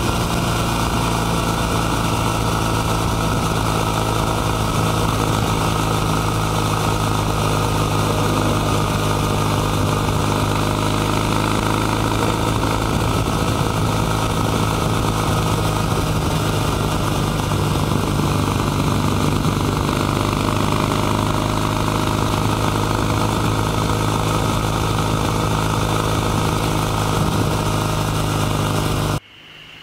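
Kawasaki W800 CAFE's air-cooled 360° vertical-twin engine and exhaust running at a steady cruise on the road, heard close to the bike with wind and road noise. The sound cuts off suddenly near the end.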